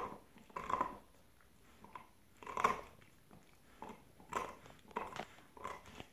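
Dogs chewing on their chews, short crunching bites coming irregularly about once a second.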